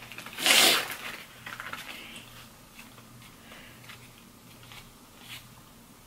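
Eating sounds: a plastic fork picking at food in a takeout box, with soft scattered clicks and rustles. A brief loud noise about half a second in is the loudest thing heard.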